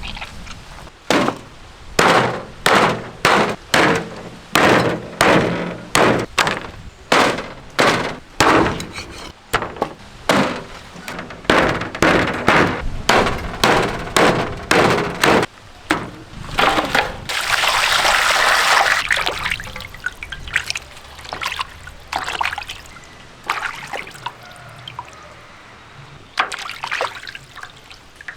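Turkey being chopped into pieces with a heavy knife, repeated knocks about one or two a second, then water rushing over the cut meat for a couple of seconds as it is washed, followed by a few scattered knocks and splashes.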